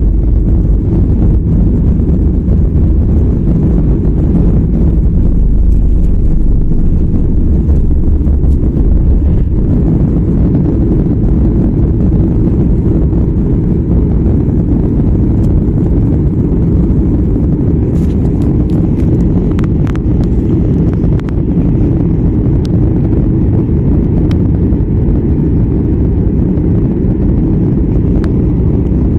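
Boeing 737 jet engines at takeoff thrust, heard from inside the cabin as a loud, steady roar. A deep runway rumble under the roar stops about nine seconds in, when the wheels leave the ground.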